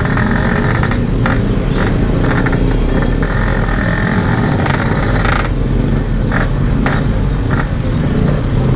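Yamaha RX-King 135 cc two-stroke single-cylinder motorcycle running under way at a fairly steady pace, heard from the rider's seat amid road traffic.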